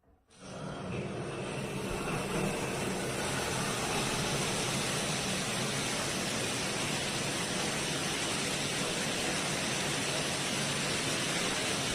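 Water spraying from a square stainless-steel rainfall shower head: a steady hiss that starts just after the beginning, builds over a second or so, then runs evenly.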